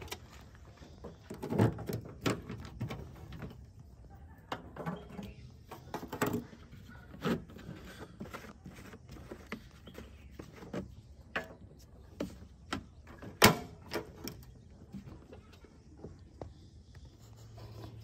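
Scattered knocks, bumps and clicks from handling a plastic jerrycan on a tractor: climbing up with it and working its screw cap. The knocks come at uneven intervals, and one sharp knock a little past the middle is the loudest.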